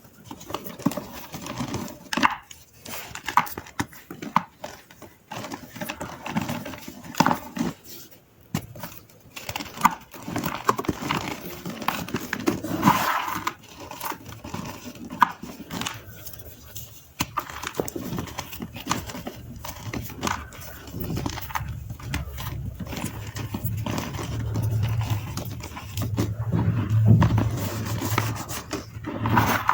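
Dry gym chalk crunching and crumbling under fingers, an uneven run of crisp crackles and crunches. A low rubbing rumble joins in for the last third.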